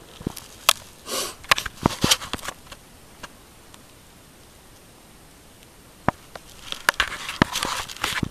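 Handling noise of a camera and clothing: scattered sharp clicks and knocks with short rustles, in two bursts with a quiet stretch between them, including a brief breathy hiss about a second in.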